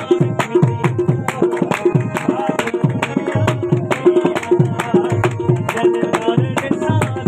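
Sufi folk music, an instrumental passage between sung lines: tabla playing a steady rhythm, its bass strokes gliding down in pitch, under held melodic tones.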